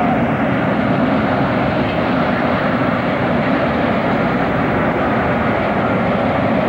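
Conrail freight train rolling past, shoved from the rear by its diesel locomotive: a steady rumble of caboose and covered hopper cars on the rails together with the working engine.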